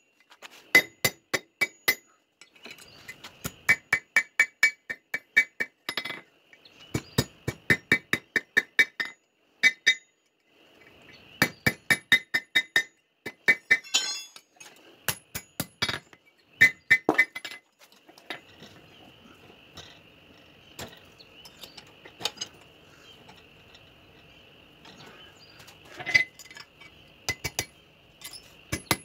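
Hand hammer striking steel tongs on an anvil, in runs of quick blows at about four a second with short pauses between, each blow ringing sharply. From about two-thirds of the way through the blows thin out to a few scattered strikes over a faint lingering ring.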